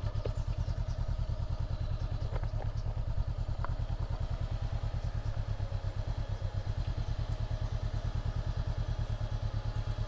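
Honda CB500X's parallel-twin engine ticking over at low revs with a steady, even pulsing beat as the motorcycle creeps along at walking pace.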